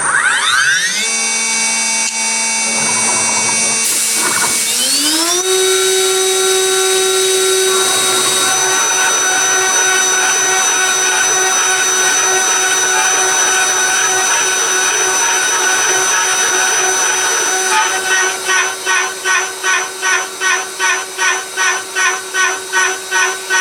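2.2 kW spindle of a CNC milling machine spinning up with a rising whine, rising in pitch again about five seconds in, then running steadily. From about eighteen seconds in the sound pulses about twice a second as the end mill cuts the part in trochoidal passes.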